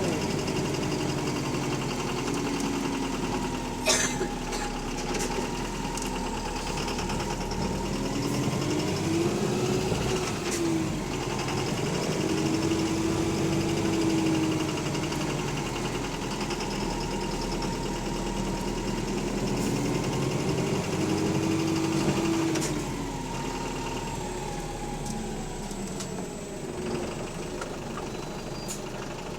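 Bus engine running with a loud rod knock, heard on board, under a whine that rises and falls several times as the bus speeds up and slows down. A single sharp clack comes about four seconds in.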